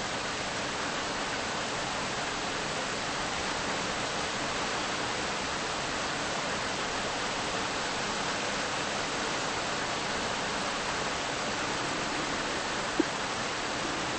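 A steady, even hiss with no pitch or rhythm, and one short click about thirteen seconds in.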